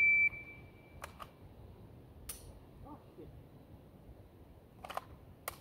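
Shot timer's start beep: a single high, steady electronic tone, loud for a fraction of a second and then fading. A few faint clicks and knocks follow, with no gunshots.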